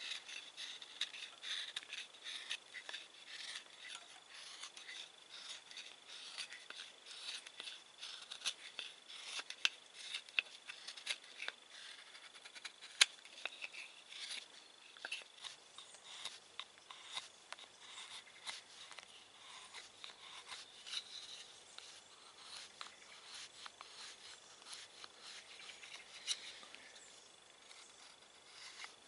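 Mora knife shaving a wooden knife sheath, a quick run of short, irregular scraping cuts as the sheath's walls are thinned down, with one sharp click about 13 seconds in.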